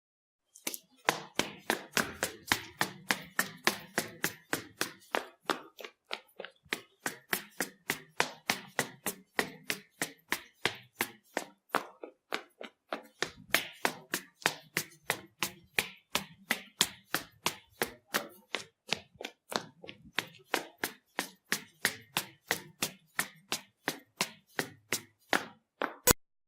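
Footsteps walking, a fast, even run of sharp steps, about three a second, that pauses briefly twice.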